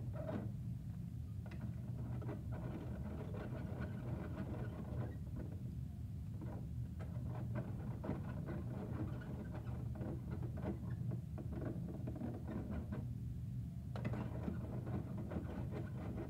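Small plastic clicks and rattles from hands working the parts of a Bruder toy garbage truck, over a steady low hum.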